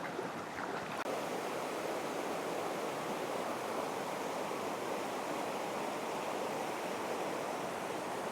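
Flowing creek water, a steady even rush, with a faint click about a second in.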